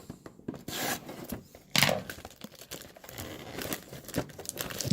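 A retail box of trading cards being torn open by hand: irregular crinkling and tearing of its wrapping and cardboard, with a sharper rip about two seconds in.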